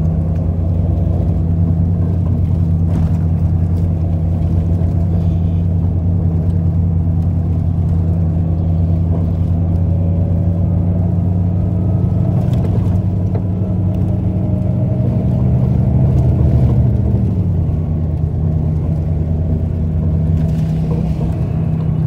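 A vehicle's engine running steadily under low road rumble, heard from on board while driving. It gets a little louder about three quarters of the way through, then its pitch drops, as when the driver shifts or eases off.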